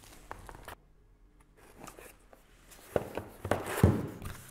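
Cardboard filament box being handled and its lid flap pulled open: a few light taps at first, then a cluster of sharp knocks and cardboard rustles about three to four seconds in.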